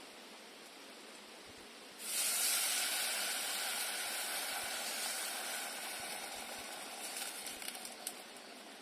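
Food going into a hot pan: a sudden loud sizzle starts about two seconds in, then slowly dies down into scattered crackling.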